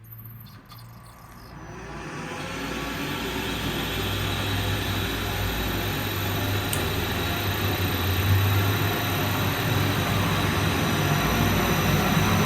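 Boge SF 29-2 rotary screw air compressor starting up: its 22 kW motor, driven by a frequency converter, spins up over the first few seconds into a steady, dense machine hum with a hiss of air, and grows a little louder towards the end.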